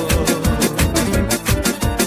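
Music: an instrumental stretch of a pop song with a fast, even percussion beat over a bass line, between sung lines.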